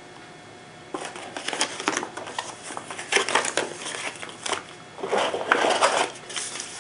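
Paper leaflets and packaging rustling and crinkling as they are handled and taken out of a box, starting about a second in, in irregular bursts.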